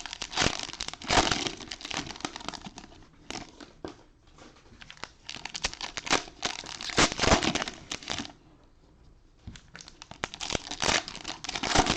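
Cellophane wrappers of trading-card packs crinkling and tearing as they are ripped open and handled by hand, in irregular runs with a short pause about two-thirds of the way through.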